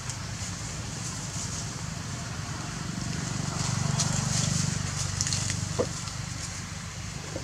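Steady low hum with a faint high hiss, and a few crackles and snaps of dry leaf litter as macaques move over it, the sharpest snap about six seconds in.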